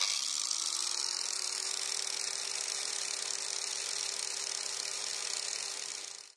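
Electric disc grinder (angle grinder) switched on for a test run of its grinding wheel. Its whine rises briefly as the motor spins up, then it runs steadily without load, with a strong high hiss.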